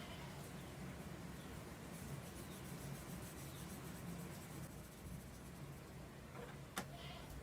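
Faint scratching and rubbing of hands working on a laptop's plastic case, with one sharp click near the end, over a steady low hum.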